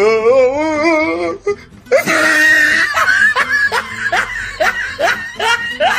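A person laughing loudly: a long trembling laugh for about a second, then, after a short pause, a fast run of short laughs.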